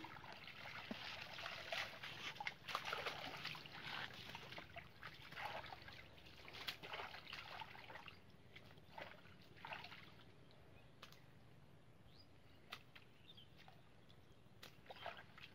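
Faint, irregular splashing and trickling of water and mud as hands sort through the catch in a bamboo-framed mosquito net in shallow marsh water, dying down after about ten seconds.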